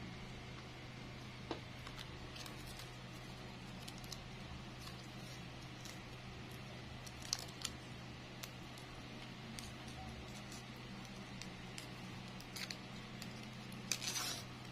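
Faint handling noise of thin plastic bag material being wound around a wire flower stem: scattered small clicks and crinkles over a steady low hum, with a louder crinkle near the end.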